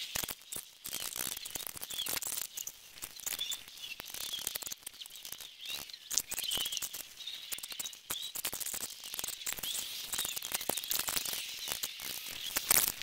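Birds chirping over a dense run of small clicks and knocks from hand work on the car's seat-belt fittings.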